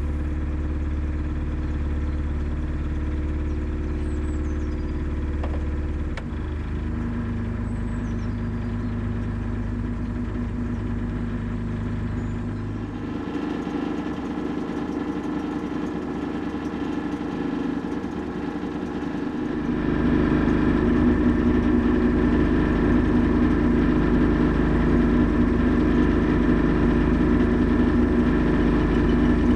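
Narrowboat engine idling steadily. Its tone shifts a few times, and it grows louder from about twenty seconds in.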